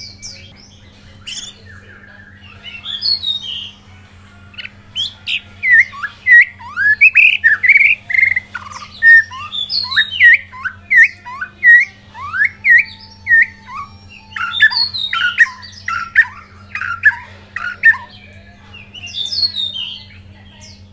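White-rumped shama singing a long, varied song: loud whistled phrases and quick runs of repeated downward-sweeping notes, pausing briefly near the end before a last phrase.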